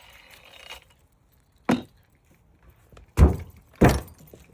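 A small angle grinder's whirring noise dies away in the first second, then three heavy knocks, the last two about half a second apart.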